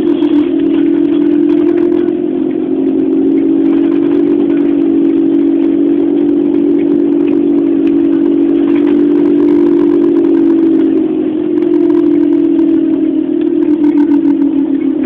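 Volvo Olympian double-decker bus heard from on board while it drives: a loud, steady engine and drivetrain drone that holds one pitch, dips briefly about two-thirds of the way through, and begins to fall near the end.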